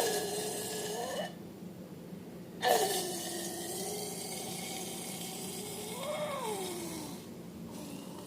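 Air let out of an inflated balloon through its stretched neck: a hiss with a wavering squeal, twice. The first lasts about a second; the second runs about five seconds, and its pitch rises and then falls away near the end.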